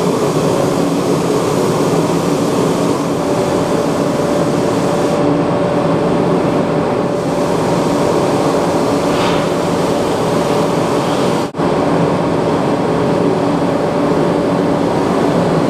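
Paint spray booth running: steady rushing air with a hum from the ventilation fans, and a spray gun hissing as it is used. The sound drops out briefly about eleven and a half seconds in.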